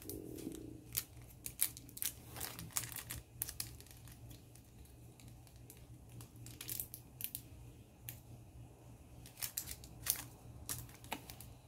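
Small scissors snipping at a little sticker packet: a scattering of faint, sharp snips, with light crinkling of the wrapper between them.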